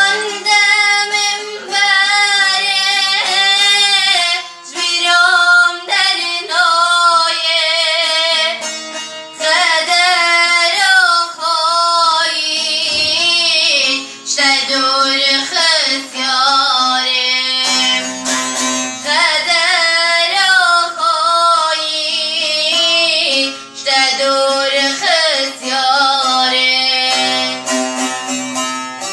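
A woman singing a Kurdish song in a melismatic, wavering vocal line, with instrumental accompaniment.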